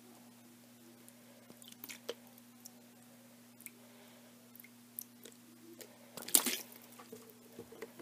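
Cube lubricant being squeezed out of its bottle onto a bare countertop: faint scattered clicks and squishes, with a louder cluster of them a little past six seconds, over a steady low hum.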